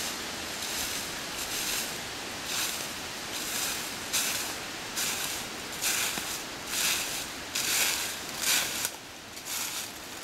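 Footsteps crunching through dry fallen leaves on a forest floor, about two steps a second, growing louder as the walker comes closer.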